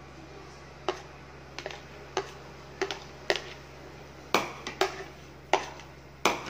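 Metal spoon tapping and scraping against plastic plates while rice is spooned from one plate onto another: a string of about a dozen sharp, irregular clicks.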